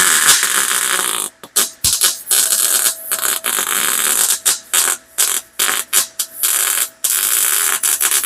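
Harbor Freight Titanium MIG welder laying a bead on an exhaust header, with gas shielding. The arc crackles and hisses in runs of a second or more, broken by several short pauses as the trigger is let off, and it stops just after the end.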